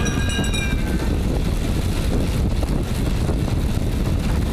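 Steady low rumble of wind buffeting a bike-mounted microphone and track-bike tyres rolling fast on wooden velodrome boards, with a thin high whine that fades out about a second in.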